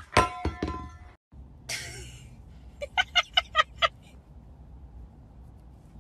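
A metal dog bowl drops onto a tatami mat floor, clattering and bouncing with a bright ringing for about a second. About three seconds in comes a quick run of six or so short, sharp sounds.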